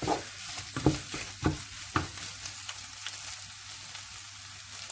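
A spoon stirring and scraping thick rava upma in a kadai, with a few sharp strokes in the first two seconds, over a steady sizzle of the upma cooking on the heat.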